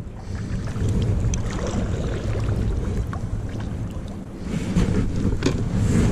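Wind buffeting the microphone in a steady low rumble, easing briefly about four seconds in, with a few light knocks.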